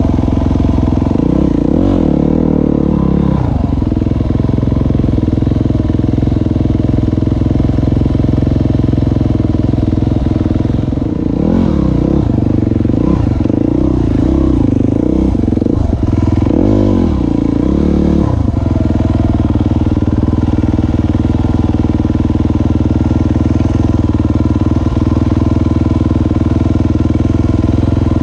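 Enduro dirt bike engine idling steadily close by, with revving in short bursts about two seconds in and several more between about eleven and eighteen seconds in, as bikes climb a rocky section.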